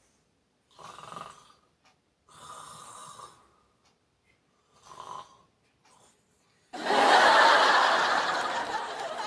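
A sleeping man snoring: three short snores a couple of seconds apart, then a much louder, longer snore near the end that fades slowly.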